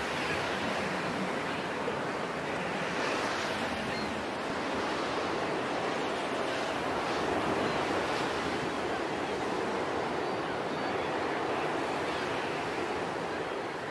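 Sea surf breaking on the shore: a steady rushing wash of waves.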